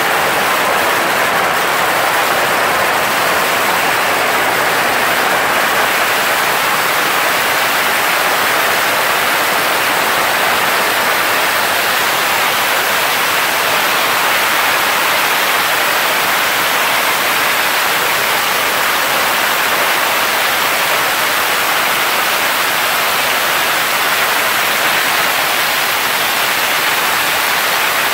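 A long barrage of firecrackers going off so densely that the bangs merge into one loud, unbroken hiss-like roar.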